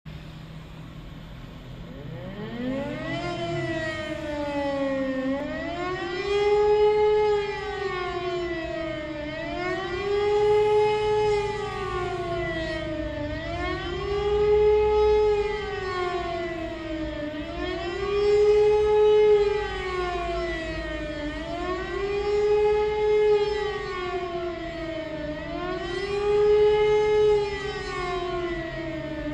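Civil-defence siren sounding the German 'Warnung' test signal. It winds up from a low pitch about two seconds in, then howls with a pitch that rises and falls smoothly about every four seconds.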